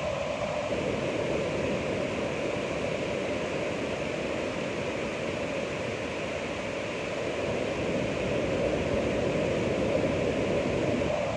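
Ocean surf: a steady wash of breaking waves, swelling louder about eight to ten seconds in.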